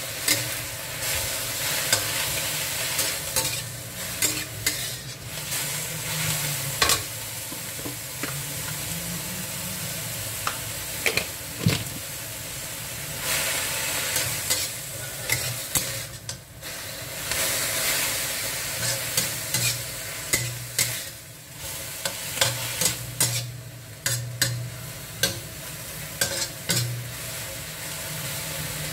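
Chopped leafy greens sizzling in a stainless-steel wok as a metal spatula stirs and tosses them, scraping and clinking against the pan many times over a steady frying hiss.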